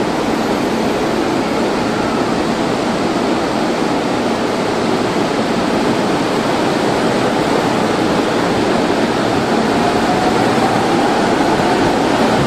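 Electric commuter train of the Chūō–Sōbu local line, with a steady rushing noise as it starts to pull out of the station. Over the last few seconds a faint whine rises slowly in pitch as the train accelerates.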